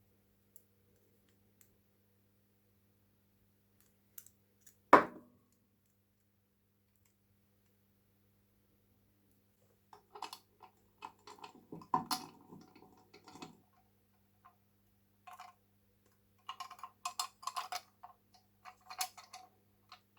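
A single sharp knock about five seconds in, then bursts of light clicking and tapping, like small hard parts being handled and set down, over a faint steady hum.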